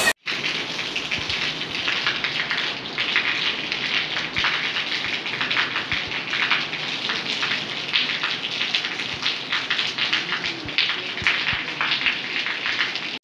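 Heavy rain pouring onto a flooded paved courtyard: a steady hiss thick with the patter and splash of drops on standing water, after a brief break right at the start.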